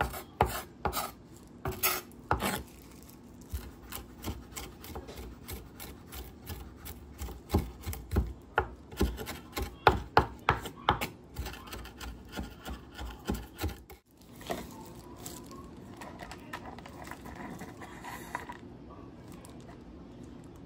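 Chef's knife chopping fresh parsley on a wooden cutting board: a run of sharp knocks of the blade striking the wood, about two or three a second and densest in the middle, stopping about fourteen seconds in.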